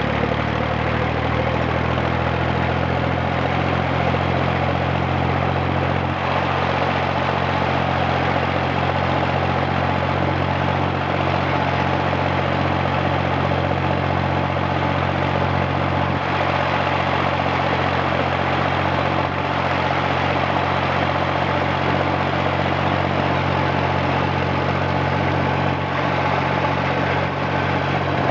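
1959 Fordson Dexta's three-cylinder Perkins diesel running steadily, its pitch settling just after the start and then holding even.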